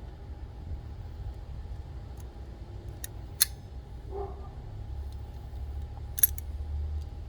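Metal clicks of locking pliers (vice grips) being worked shut and released: a couple of sharp clicks about three seconds in and a louder one a little after six seconds, over a steady low rumble.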